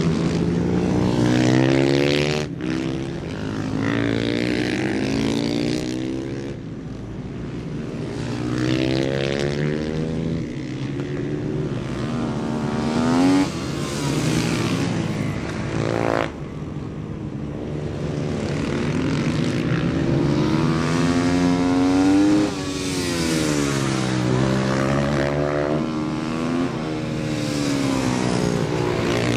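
Supermoto race motorcycles at full throttle, the engine pitch climbing hard and dropping again over and over as the bikes accelerate, shift and brake, with more than one bike heard at once.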